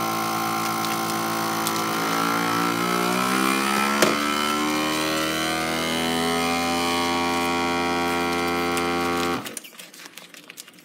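Countertop vacuum sealer's pump running steadily, drawing the air out of a plastic bag of chicken before the heat seal. Its hum shifts a little in pitch a few seconds in, a sharp click comes about four seconds in, and the pump cuts off suddenly near the end.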